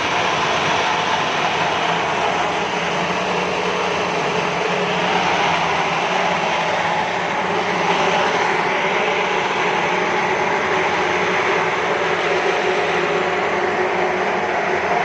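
Steam boiler plant running: a steady loud hiss with a low mechanical hum underneath, unchanging throughout.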